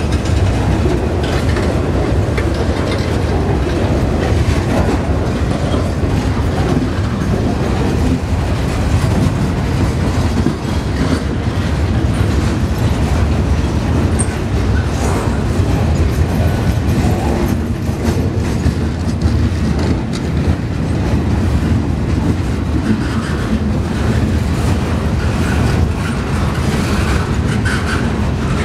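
Freight train of boxcars rolling past at a steady speed: a continuous rumble of car wheels on the rails, with steady clickety-clack over the rail joints.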